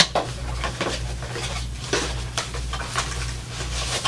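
Cardboard box and packaging handled during unboxing: a string of short clicks, crinkles and light knocks as items are lifted out, over a steady low hum.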